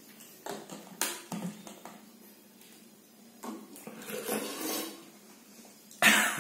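Plastic soda bottles knocking and clattering against plates and a tabletop as they are picked up and tipped by mouth, with no hands: a few sharp knocks in the first second or so, scattered handling noise after that, and a loud sudden noise about six seconds in.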